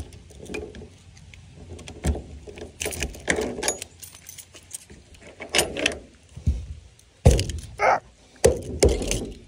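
A bunch of keys jangling in hand, with a scatter of small clicks, then a few loud knocks from about seven seconds in.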